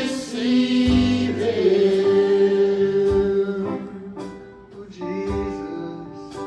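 Gospel worship music with singing: sustained vocal notes over held chords, with a low bass note.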